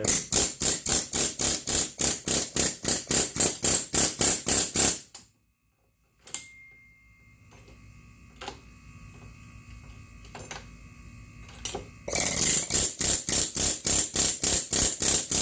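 Rapid back-and-forth scraping strokes of a hand tool worked on a clamped scooter part, about four or five strokes a second. A run of about five seconds, then a pause with faint handling sounds, then a second run starting about twelve seconds in.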